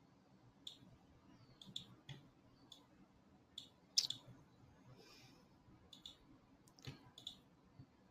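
Computer mouse clicking: about a dozen faint, single clicks at irregular intervals, the loudest about four seconds in.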